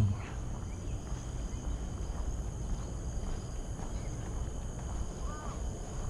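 Outdoor ambience of insects droning steadily at a high pitch over a low rumble, with one brief chirp about five seconds in.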